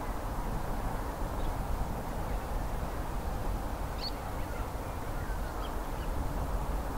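Steady low outdoor rumble with a few faint, short bird calls about four seconds in.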